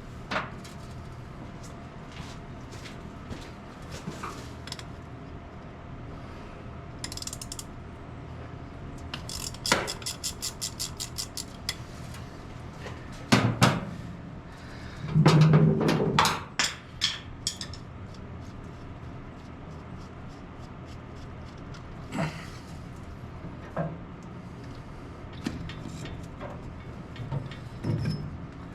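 Hand tools on old truck parts: a ratchet wrench clicking in a quick even run of about ten clicks, among scattered metallic clanks and knocks, the loudest a cluster of clanks about halfway through.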